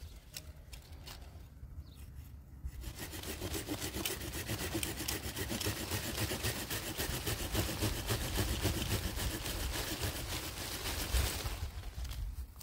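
Hand pruning saw (Hutz) cutting through a small orange-tree branch in a steady run of quick back-and-forth strokes. The sawing starts about three seconds in and stops shortly before the end.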